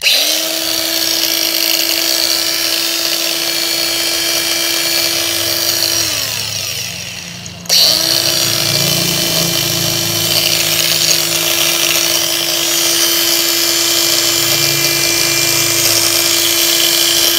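Hitachi 14.4-volt cordless angle grinder running free with no load: it spins up at once and runs steadily, is switched off about six seconds in and winds down, then is switched on again a little before eight seconds in and runs steadily on.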